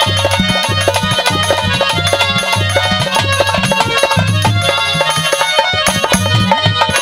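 Live Haryanvi ragini instrumental accompaniment: a hand drum beats a steady rhythm under a sustained melody instrument.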